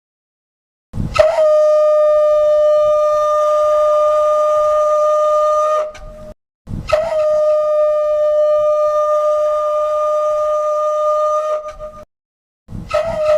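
Air horn sound effect: two long, steady, single-pitched horn blasts of about five seconds each, separated by a short break.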